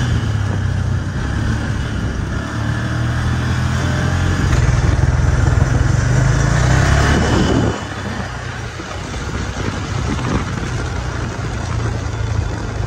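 A motor vehicle's engine running steadily, swelling in level a little past halfway and then dropping off suddenly.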